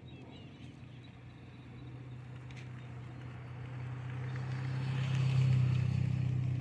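A motor vehicle's engine running at a steady pitch, growing louder to a peak about five seconds in and then easing off slightly, as it approaches and passes.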